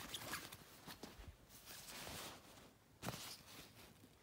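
Faint rustling of a nylon jacket's fabric and tags being handled, with a sharper rustle about three seconds in.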